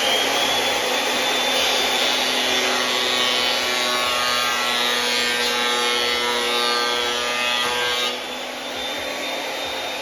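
Makita 2012 12-inch lunchbox planer running with a board feeding through, its dull, nicked knives spanking or slapping the wood instead of making a clean cut. About eight seconds in the board clears and the planer runs on unloaded, quieter, with its steady high whine.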